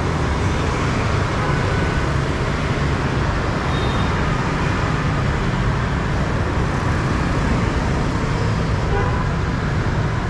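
Steady street traffic: motor scooters and cars running along a busy city road.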